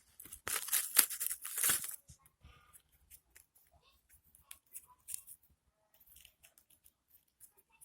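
Packaging being torn open by hand: a rapid run of tearing and crinkling for about two seconds, then only faint handling clicks.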